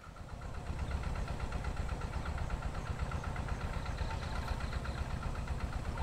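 Evening field ambience over rice paddies, fading in over the first second: a dense low rumble under fast, evenly repeating chirps and a thin steady high-pitched tone.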